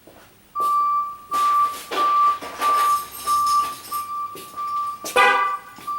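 A 2020 Ram 1500's cabin warning chime: a single high tone beeping about every two-thirds of a second, the kind a pickup sounds with a door open or the key in. About five seconds in, a short, sharp sound with several tones cuts in over it.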